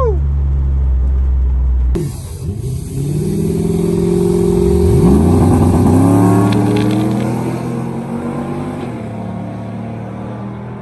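A steady low engine drone heard inside the cab of a Chevrolet Trailblazer drag truck; then, from trackside, the Trailblazer and a truck in the other lane launching down the drag strip, engines revving hard with pitch climbing in steps through the gears, and fading as they pull away.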